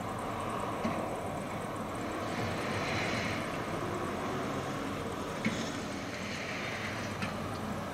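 Distant diesel machinery at a railway worksite running steadily, the drone swelling gently twice, with a few light knocks.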